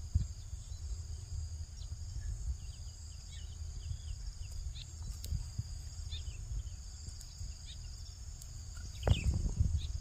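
Wind rumbling on the microphone over a steady high insect drone, with scattered short bird chirps. A brief louder handling noise comes near the end.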